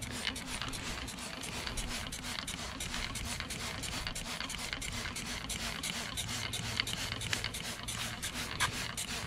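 Hand trigger spray bottle squirting aluminum brightener onto an aluminum boat hull, pumped rapidly in short sprays, several a second.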